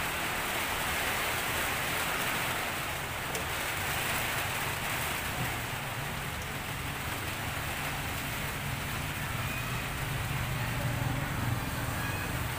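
Steady rain, an even hiss with a low hum underneath.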